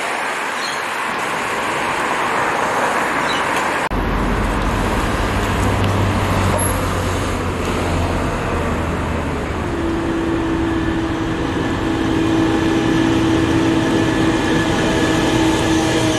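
Street traffic: cars passing and idling. About four seconds in the sound changes abruptly to a closer, lower rumble, and from about ten seconds in a steady engine hum runs under it.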